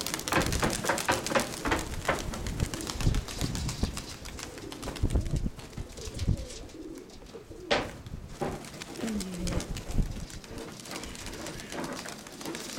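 Domestic pigeons, Nikolaev tumblers, cooing, with a low falling coo about nine seconds in. Sharp knocks and rustles come thickly in the first few seconds.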